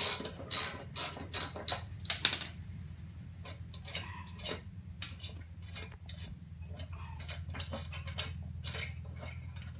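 Ratchet and socket clicking sharply about six times, half a second apart, as the blade bolt of a push lawn mower is backed off. After that come quieter scraping and light clinking as the steel blade is worked loose from the spindle by hand.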